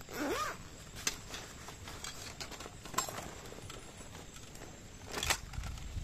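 A few light, sharp clicks or knocks, about one, three and five seconds in, over a low steady rumble, with a short squeak that rises and falls right at the start.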